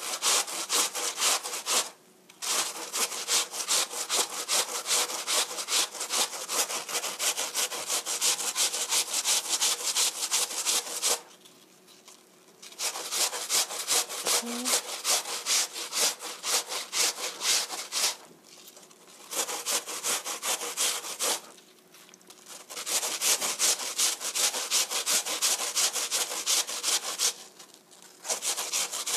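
A peeled apple being grated on a stainless steel box grater: rapid, even scraping strokes of fruit over the metal teeth, stopping briefly a few times.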